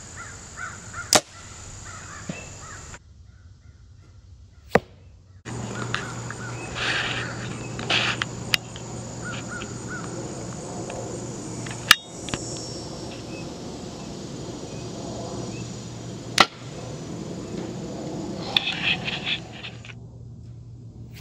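Compound bows being shot: five sharp snaps of the string on release, well spaced, over a steady high hum of insects. Short bird calls come in a few times between the shots.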